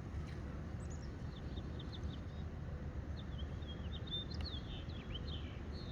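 A small bird chirping in a quick series of short, high notes, over a steady low outdoor background noise.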